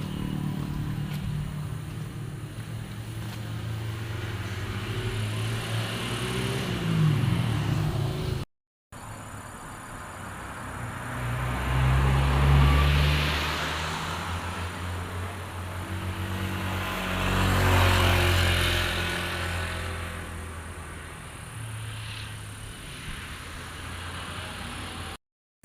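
Heavy diesel trucks driving past one after another with their engines running; in the second half two pass close, each swelling loud and fading away.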